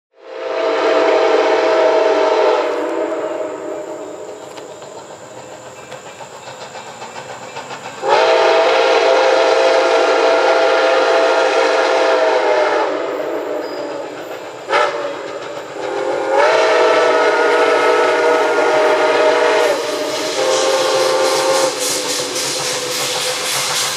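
Nickel Plate Road 765, a 2-8-4 Berkshire steam locomotive, sounding its steam whistle in a long, long, short, long pattern, the standard grade crossing signal, as it approaches. Its exhaust chuffs and hiss grow louder near the end.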